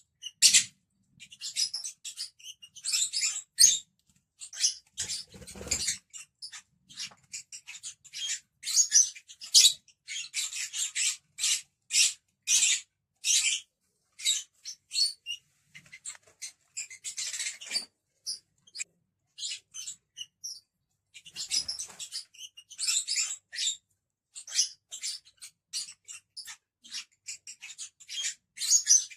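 Several lovebirds chattering, a rapid run of short, shrill chirps and squeaks that overlap and pause only briefly.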